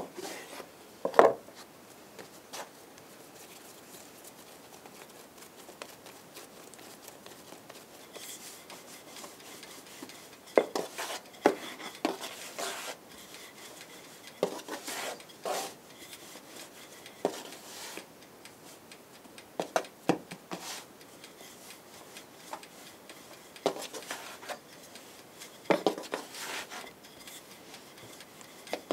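A knife cutting soft dough on a wooden board, knocking against the board, then a wooden rolling pin rolling out dough on a floured board: soft rubbing broken by scattered knocks as the pin and dough are handled.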